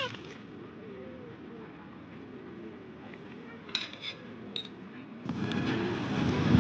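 Quiet rain-and-fireplace ambience with a few sharp ticks about four seconds in. Near the end a heavy rush of rain swells in suddenly and builds toward a thunder rumble.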